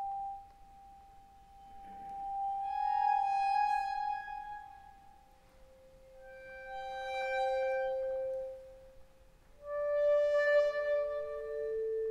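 Accordion playing long, sustained notes that swell up and die away three times, each on a different pitch, in a slow contemporary classical passage.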